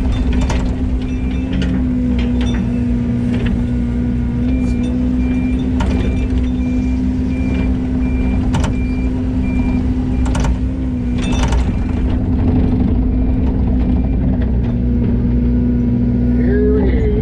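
Yanmar ViO80 excavator's diesel engine running steadily under load, with a high warning alarm beeping regularly for the first several seconds. Sharp metallic clanks come every few seconds.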